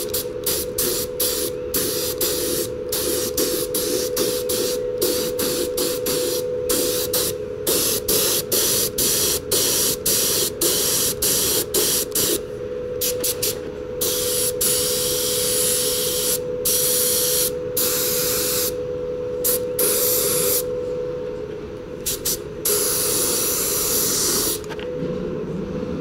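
Compressed-air mini spray gun spraying primer in many short trigger bursts of hiss, stopping and starting sharply, with a few longer passes near the end, over a steady hum.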